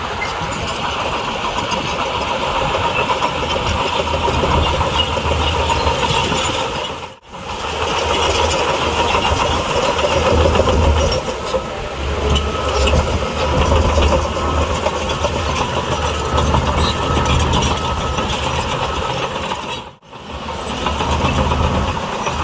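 A bulldozer's diesel engine runs steadily with a heavy low rumble. The sound drops away sharply for a moment twice: about seven seconds in and again near the end.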